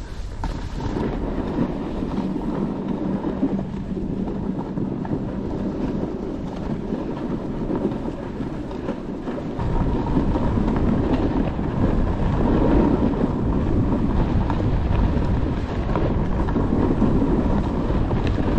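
Skis running over snow with wind rushing across the microphone, a steady noisy rumble; it turns louder and rougher about ten seconds in.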